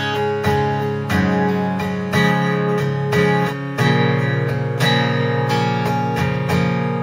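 Guitar in an open tuning being strummed through a chord sequence, a chord struck roughly once a second and left ringing.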